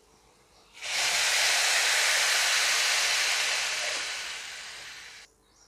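Hot water poured into a hot iron kadai of fried onion masala, setting off a loud sizzling hiss. It starts suddenly about a second in, fades gradually over about four seconds as the pan cools, and stops shortly before the end.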